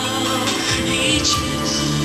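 A male singer singing a Chinese pop song into a microphone, with the accompanying music played through the hall's PA.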